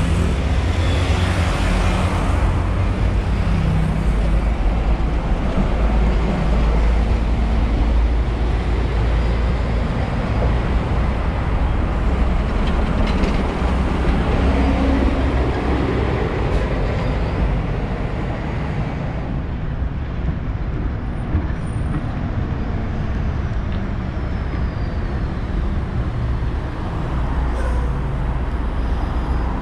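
Road traffic on a city avenue: city buses and cars passing with a steady low engine and tyre rumble. About halfway through, an engine note rises and falls as a bus goes by. The noise thins a little after about two-thirds of the way.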